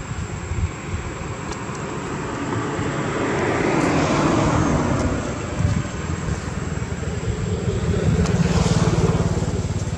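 Engine noise of passing motor vehicles: one swells and fades about four seconds in, and a second rises with a steady low hum near the end.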